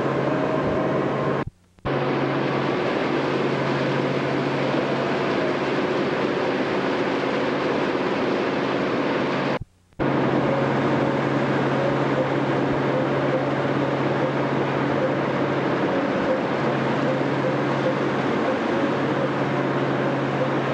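Steady engine drone of a harbor cruise boat, with a constant low hum, cut to silence twice for a moment where the recording breaks.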